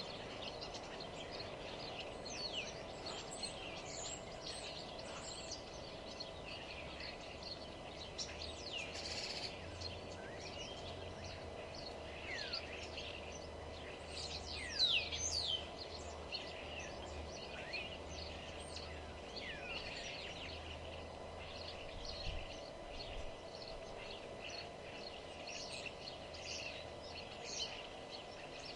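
Several songbirds singing and calling together, a busy mix of short chirps and quick falling whistles, loudest about halfway through, over a steady low background hum.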